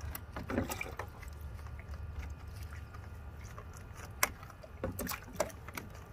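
Water splashing and sloshing in a plastic kiddie pool while a small dog is washed, with water poured from a cup over its back. There are a few short sharp splashes, the loudest just after four seconds in, over a steady low rumble.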